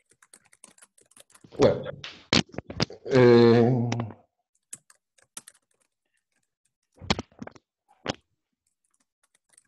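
A man's voice saying a few words over a video call, then scattered faint clicks and two sharp knocks, about seven and eight seconds in.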